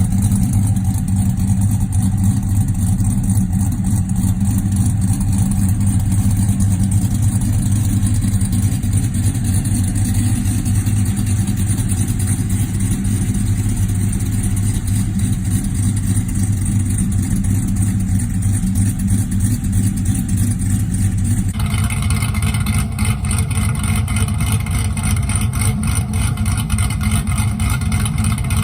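Cammed GM LS V8 in a pickup, running steadily with a low, even drone. About two-thirds of the way through, the sound changes abruptly and becomes brighter and busier.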